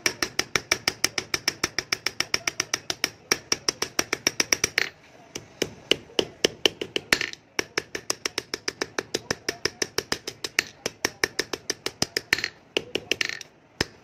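Hand hammer striking a steel sickle blade on a steel anvil block in a fast, even run of about five ringing blows a second. The hammering pauses briefly about five seconds in and again about seven and a half seconds in.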